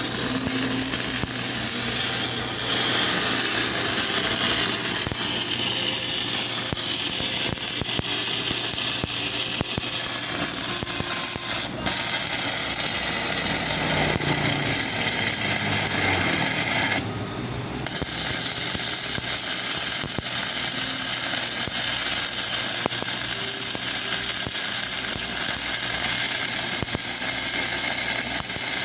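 Stick welding arc crackling and hissing steadily as a 2.6 mm electrode burns down on a freshly serviced arc welding machine run under full load. The arc briefly thins out about two-thirds of the way through, then picks up again.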